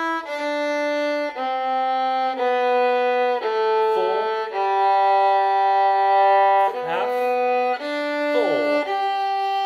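Violin playing a slow G major scale exercise, one sustained bowed note after another, most held about a second, with a longer note in the middle.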